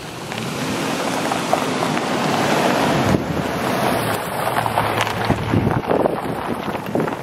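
Ford Ranger pickup driving slowly past over a loose, rocky dirt track: its tyres crunch and crackle on the gravel over a low engine hum, louder over the first few seconds as it nears. Wind buffets the microphone throughout.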